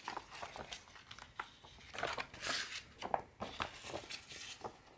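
Large printed paper pattern sheets rustling and crinkling as they are handled and turned over, in a string of irregular rustles with the loudest a little past the middle.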